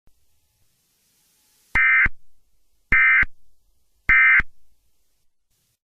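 Emergency Alert System end-of-message data tones: three short, identical bursts of screechy digital tones, each about a third of a second long and a little over a second apart. They mark the end of the alert.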